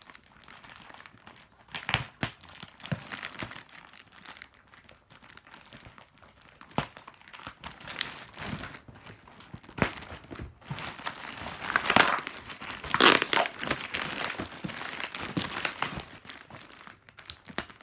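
Packaging being crinkled, rustled and torn open by hand, an uneven run of crackles with a louder stretch about twelve to thirteen seconds in.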